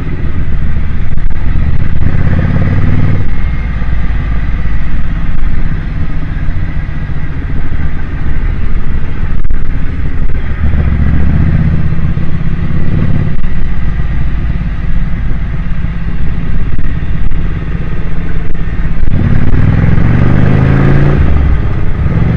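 Motorcycle engine running on the move, with heavy wind rush over the microphone. The engine note climbs three times as the bike accelerates, the last near the end.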